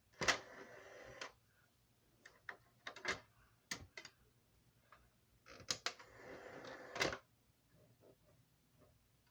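Sony DVD player's disc drive, noisy with age: a click, then about a second of whirring, a few scattered clicks, then another whirr of about a second and a half that ends in a sharp click.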